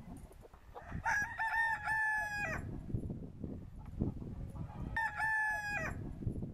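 Pavlovskaya rooster crowing twice, a long crow about a second in and a shorter one near the end, over a low, uneven rumble with scattered knocks.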